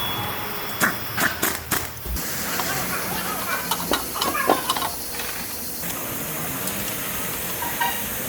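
Sharp clicks and knocks, like tools or metal parts being handled, in two short clusters: one about a second in and another around four seconds. A steady hiss runs under them.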